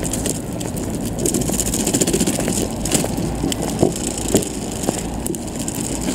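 Stroller wheels rolling over stone paving, a steady rumble with a constant light rattle and clicking.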